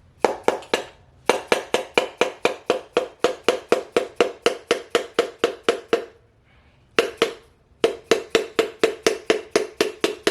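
Dead blow hammer tapping rapidly on socket extensions set against the back of a piston in an LS 5.3 V8 block, driving the piston and connecting rod out of the cylinder bore. About five strikes a second, each ringing at the same pitch, in runs with short pauses near the start, around six seconds in and again a second later.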